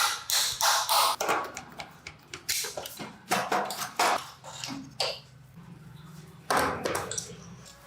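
Workshop handling noises from a motorcycle engine rebuild: an irregular run of short knocks, clicks and scrapes of hand tools and metal engine parts, with a louder scrape near the end.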